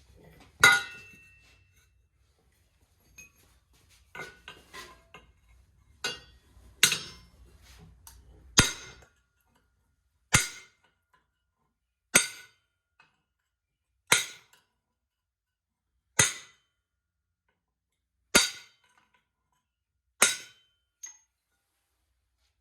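Hammer blows on a steel pallet-rack piece, knocking a dent out to straighten it: a few irregular strikes, then six single blows about two seconds apart.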